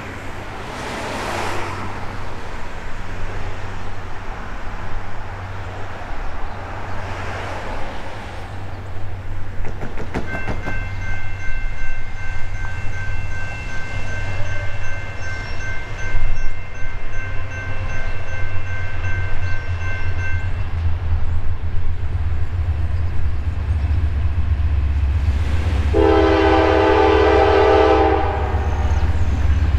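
Norfolk Southern GE D9-44CW diesel-electric locomotive approaching at the head of a freight train: a steady low rumble that grows louder, then a blast of its multi-chime air horn lasting about two seconds near the end.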